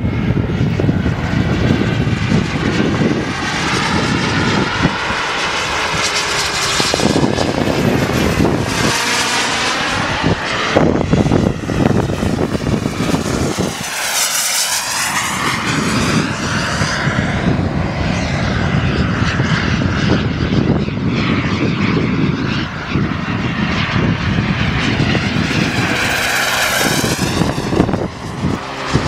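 Small turbine engines of radio-controlled model jets flying past: a loud, continuous jet rush and whine whose tone sweeps up and down as each plane passes, with one clear pass about halfway through.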